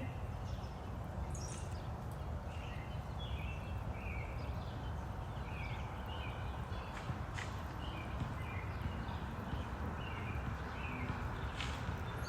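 Periodical cicadas calling over a steady background hiss, with short, slightly falling calls repeating about once a second.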